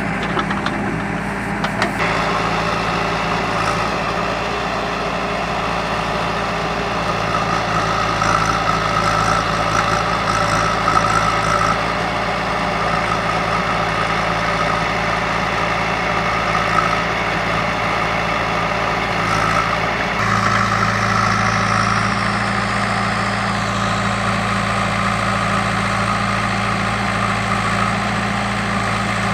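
JCB backhoe loader's diesel engine running steadily, with a high whine coming and going over it. About two-thirds of the way through, the engine note grows louder and fuller.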